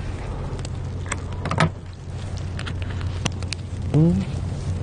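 Eating by a small charcoal grill over a steady low hum: scattered sharp clicks and taps of chopsticks and chewing, and a short rising 'mm' from a voice about four seconds in.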